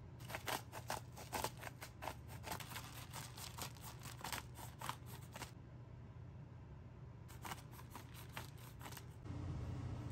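Salt and pepper being added to a raw cabbage steak: a run of small crisp clicks and crunches for about five seconds, a pause, then a shorter run. Near the end a steadier low hum comes in.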